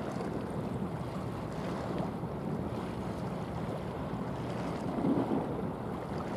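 Wind noise on the microphone over the wash of water along a passing car carrier's hull. It swells briefly about five seconds in.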